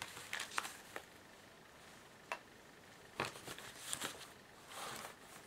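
Cardstock tags and pockets of a handmade paper journal being handled: faint paper rustles with a few light taps and clicks, in short clusters.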